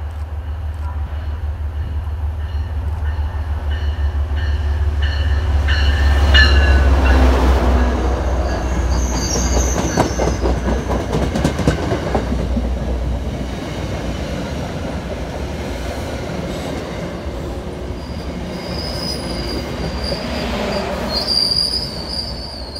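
An MBTA commuter train, a diesel locomotive hauling bilevel coaches, passes through the station. The locomotive's deep engine rumble builds as it nears and fades after about 13 seconds. The wheels clatter over the rail joints in the middle, and a high wheel squeal rings out near the end as the last cars go by.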